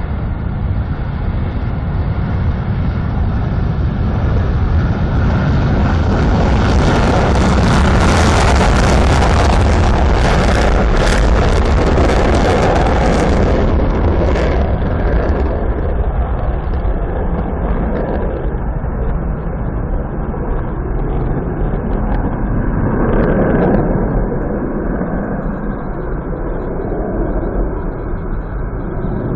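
B-1B Lancer bomber's jet engines on a full-power afterburner takeoff: a loud roar that builds and peaks about 8 to 13 seconds in, crackling at its height, then eases to a steadier, lower rumble.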